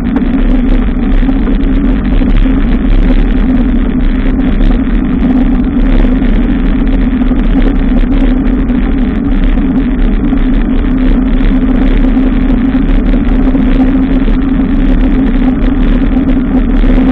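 Steady, loud rumble of wind and road noise on the microphone of a camera riding on a moving bicycle, unchanged throughout.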